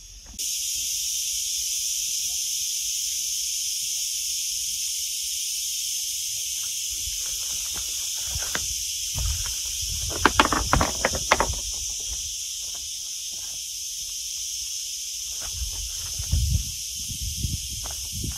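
Steady high-pitched insect chorus that comes in abruptly just after the start and holds throughout. A cluster of sharp knocks sounds about ten seconds in, and low thumps come near the end.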